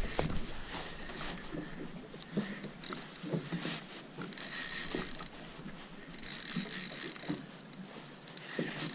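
A Penn Clash 3000 spinning reel being cranked in two short spells about a second each, with scattered small clicks and water lapping at the boat's hull.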